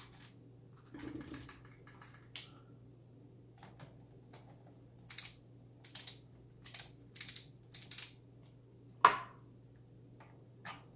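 Light metallic clicks and ticks of hand-driven screws being backed out of the underside rails of a OneWheel Pint, a few scattered at first, then a quick run of clicks about halfway through and one sharper click near the end.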